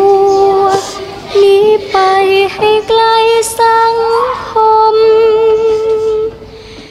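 A girl's voice singing a slow melody in long held notes, with a slight waver on the last note, then fading out near the end.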